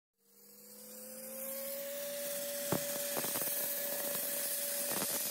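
Dry-ice blasting gun hissing steadily as it blasts old, peeling anti-graffiti coating off a clinker brick wall, fading in over the first two seconds. A steady whine runs underneath, and there are a few sharp ticks.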